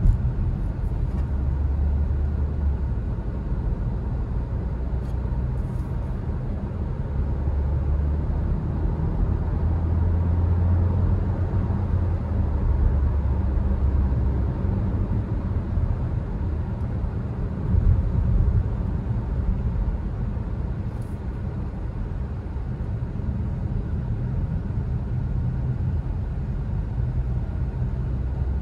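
Steady low rumble of road and engine noise inside the cabin of a Skoda Kodiaq cruising at motorway speed. It swells briefly about two-thirds of the way through.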